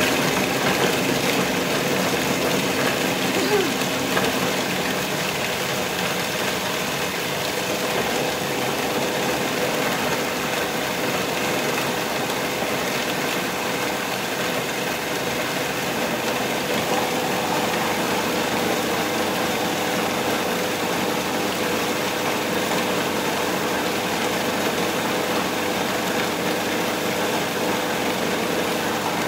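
Magimix food processor running steadily at full speed, its blade chopping peanuts and dates together into a still-dry, crumbly dough.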